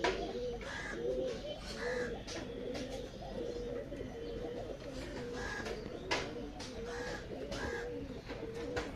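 A loft full of domestic pigeons cooing, many overlapping coos going on without a break, with a few sharp taps, about half a second in, about six seconds in and near the end.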